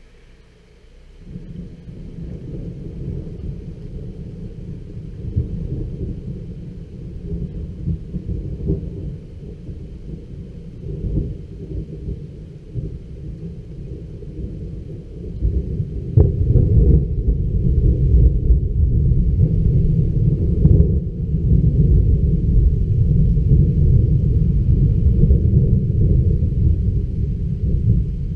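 Thunder: a low rolling rumble starts about a second in and swells and fades irregularly. About halfway through a sharp crack sets off a louder, longer rumble.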